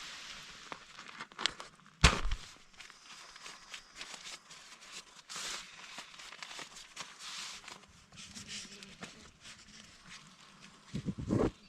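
Irregular crinkling, rustling and clicking handling noises, with one sharp knock about two seconds in and a short burst of low thumps near the end.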